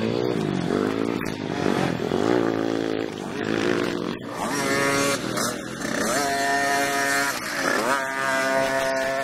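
Small motocross dirt bike engine revving as it is ridden, its pitch climbing and dropping several times in the first half, then held higher through the second half.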